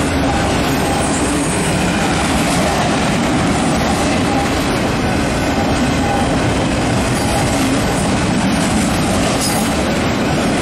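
Freight train of autorack cars passing at speed close by: a steady, unbroken rumble and rattle of steel wheels rolling on the rails.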